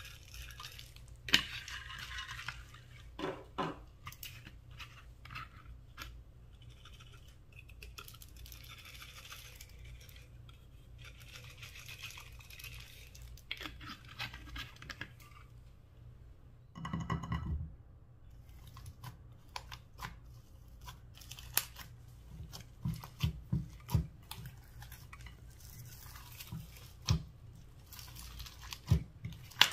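Small beads rattling in a plastic bottle and pattering down onto slime in a glass dish as they are poured, with scattered clicks. There is a brief squeak about halfway through, and near the end sharper clicks and taps as fingers press and mix the toppings into the sticky slime.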